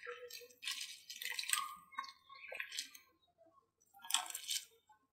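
Noodles stirred and lifted with a metal spoon in a pot of boiling water: wet splashing and squelching in several short, irregular bursts.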